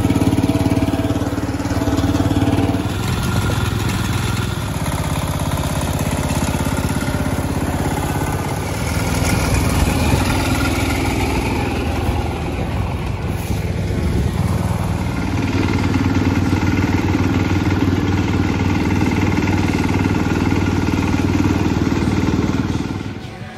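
1968 Cub Cadet 125 garden tractor's single-cylinder Kohler engine running steadily while the tractor drives, hauling branches.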